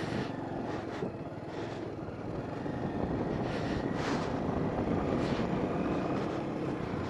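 Motorcycle engine running at riding speed, under steady wind rush over the microphone and the rattling flaps of a small flag on the handlebar.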